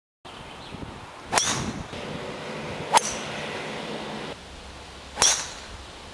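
A golf club striking the ball three times: sharp cracks about a second and a half and then two seconds apart, the first and last each with a short ringing tail.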